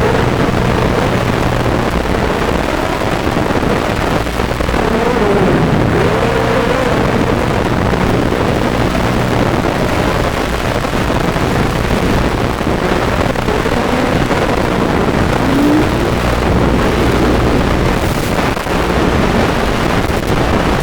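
Lumenier QAV250 racing quadcopter in flight: its brushless motors and propellers whine continuously, the pitch wavering up and down with the throttle, over a steady rush of air noise.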